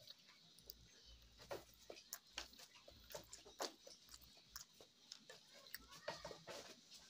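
Faint, irregular wet clicks and smacks of a person chewing and picking apart boiled fish with his fingers.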